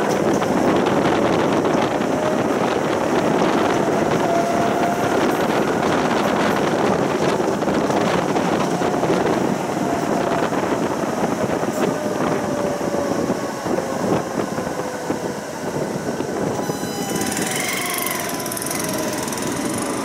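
Tram running on its rails: a steady rumble of wheels on track, with the traction motor's whine rising over the first few seconds and then falling slowly as the tram slows toward a stop. A short high-pitched squeal comes near the end.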